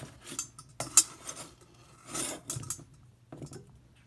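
Kitchen knife cutting softened butter into pieces in a stainless steel mixing bowl: a few sharp clinks of the blade on the metal bowl, with softer scrapes between.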